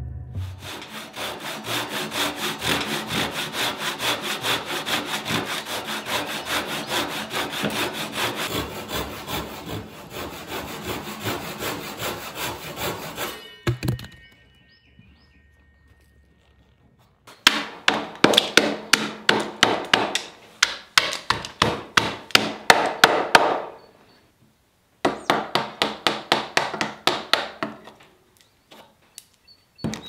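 Timber being hand-worked: about thirteen seconds of steady, rapid sawing strokes, then, after a pause, two runs of sharp wooden knocks as a chisel is driven into the end of a timber-frame beam.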